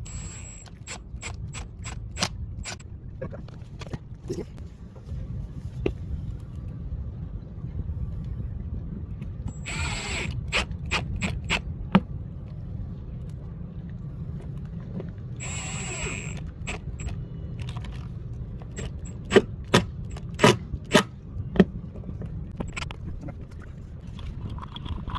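Scattered clicks, taps and scrapes of tools and materials being handled, with two short hissing bursts about ten and sixteen seconds in and a run of sharper knocks near the end, over a steady low rumble.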